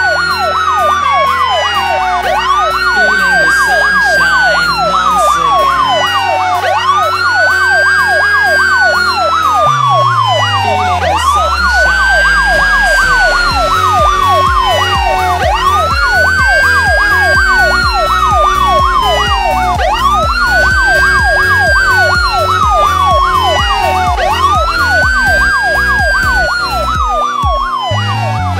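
Electronic dance music with a siren-like synth sweep that rises quickly and falls slowly about every two seconds over a fast repeating pattern. The bass slides down about ten seconds in, then pulses in a steady beat.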